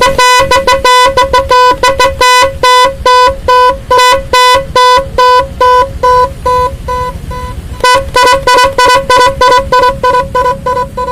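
ONS DL-2017 12-volt electronic multi-sound horn sounding a rapid, stuttering pattern of short, loud beeps at one pitch, with brief gaps between the runs.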